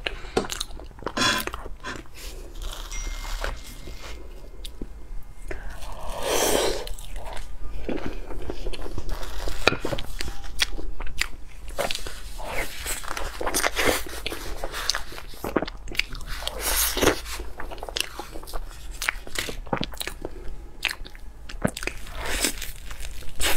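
Close-up eating: seafood being bitten and chewed, with many sharp, irregular clicks and cracks.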